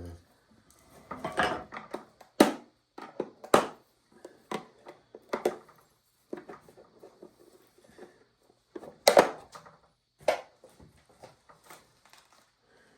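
Irregular knocks and clunks of hard objects being handled, about a dozen spaced a second or so apart, with the loudest a little over two seconds in and again about nine seconds in.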